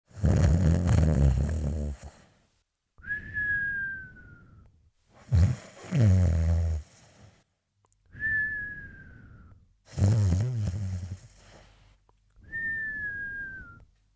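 Cartoon snoring: a snore followed by a thin whistle that glides slightly down in pitch, repeated three times in a slow, even cycle.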